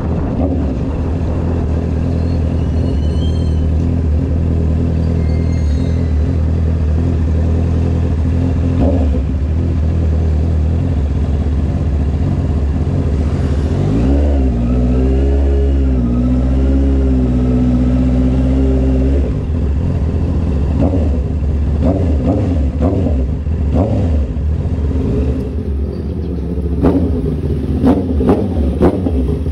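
Honda CB650R's inline-four engine running as the motorcycle is ridden. About halfway through the note rises and wavers for several seconds, and in the last few seconds there are short, sharp revs.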